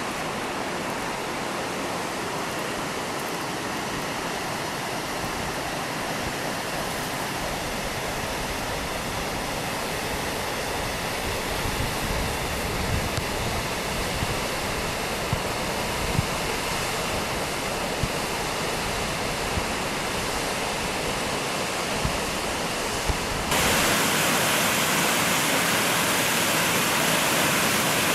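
Rocky mountain river rapids rushing, a steady hiss of white water heard from high above the gorge, with a few low thumps in the middle. About three-quarters of the way through it turns suddenly louder and brighter: the same rapids close at hand from the water's edge.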